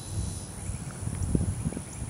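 Low, uneven rumbling noise on the microphone, with two or three faint, short high bird chirps.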